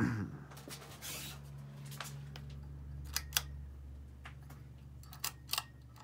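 Hunter Right At Home ceiling fan running, its motor giving a steady low hum. A short rustle about a second in and several sharp clicks from about three seconds on come from nearby handling or movement.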